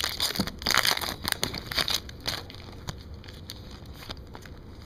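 Wrapper of a 2010/11 Upper Deck Series 1 hockey card retail pack crinkling and tearing as the pack is opened. A dense crackle lasts about two seconds, then dies down to faint scattered clicks.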